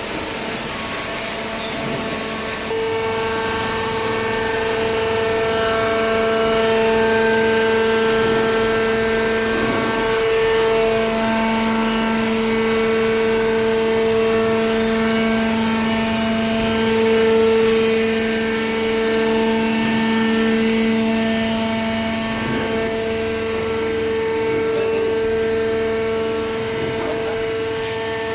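Hydraulic cardboard baler and its feed conveyor running: a steady machine hum with a couple of held tones. It gets louder about three seconds in.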